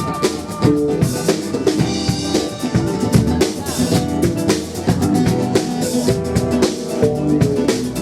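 Live rock band playing an instrumental passage: drum kit with snare and bass drum keeping a steady beat under guitars and bass.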